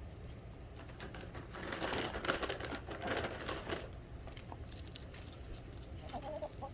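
Crackling, rustling noise for a couple of seconds, then a few short, soft hen clucks near the end.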